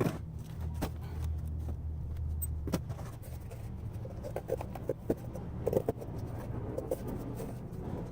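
Scattered metallic clicks and clinks from a valve spring compressor, retainers and keepers being handled while valve springs are taken off a Honda K24 cylinder head, with a cluster of small clinks in the middle, over a low steady hum.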